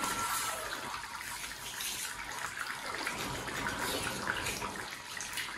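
Two people eating from rice bowls with chopsticks: wet chewing and slurping noises and light clicks of chopsticks against the bowls, over a steady hiss.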